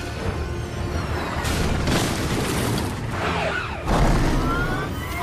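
Action-film car-chase sound mix: heavy rumbling and crashing over a music score, with a few pitch sweeps and a loud low boom about four seconds in.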